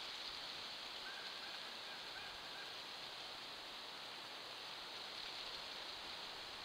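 Steady hiss from a trail camera's microphone over quiet winter outdoor background, with a few faint, short high calls from an unseen animal between about one and two seconds in.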